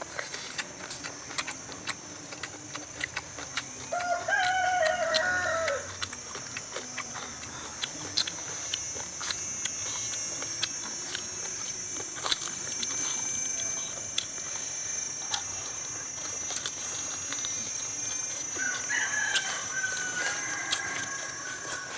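A rooster crowing twice, one crow about four seconds in and a higher one near the end, each about two seconds long and falling away at its close. Scattered clicks and a steady high hiss run underneath.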